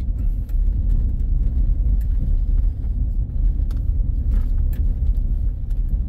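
Truck driving along a dirt road, heard from inside the cab: a steady low rumble of tyre, road and engine noise.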